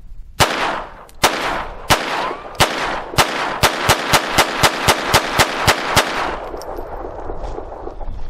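Kel-Tec P17 .22 LR semi-auto pistol firing a string of about fifteen shots, slower at first and then rapid at about four a second, stopping about six seconds in. Each shot has a short ringing tail.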